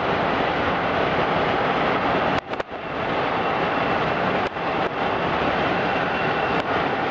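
Union Pacific 844, a 4-8-4 steam locomotive, running at speed, its exhaust merged into a steady rushing noise with wind rush, heard from a car pacing it. The sound drops out briefly about two and a half seconds in.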